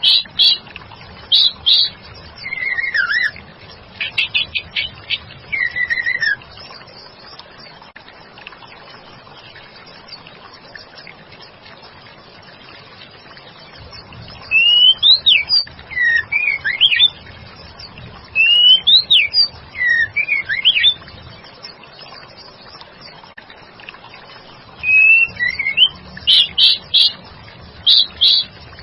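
Female white-rumped shama (murai batu) calling to draw a male's answer: short phrases of whistled notes sliding up and down, mixed with quick chattering notes. The phrases come in three groups, the first in the opening six seconds, then after a pause of about eight seconds another group about halfway through, and a last group near the end.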